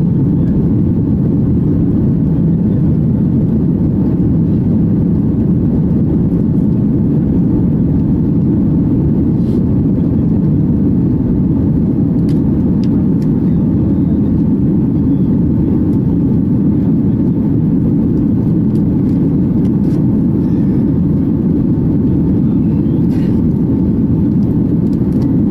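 Steady cabin roar inside a Boeing 737-800 during the climb after takeoff, heard at a window seat beside the wing: its CFM56-7B engines and the rushing airflow make a dense, low, even rumble.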